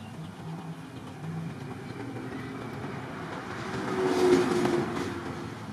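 A motor vehicle going past, its sound swelling to a peak a little past halfway and then fading.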